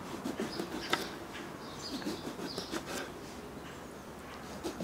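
Kitchen knife slicing an aubergine into rounds on a wooden chopping board: a run of soft, irregular cuts and taps of the blade reaching the board.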